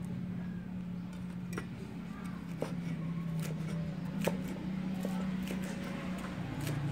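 Cleaver chopping green onions on a wooden cutting board: a few scattered sharp knocks of the blade against the wood, over a steady low hum.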